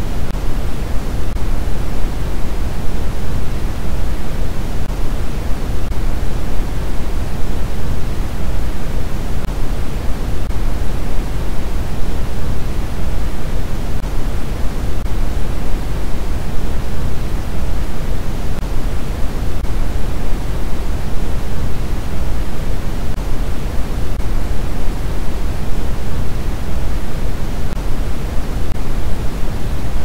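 Steady, loud, unbroken noise from a generated relaxation and sleep noise track, an even rushing hiss that is heavier in the bass than in the treble and never changes.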